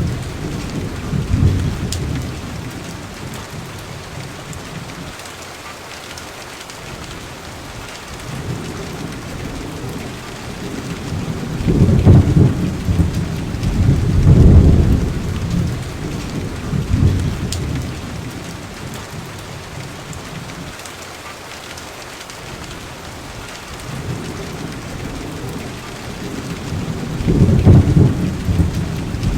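Steady rain with rolls of thunder: deep rumbles swell about twelve and fourteen seconds in and again near the end.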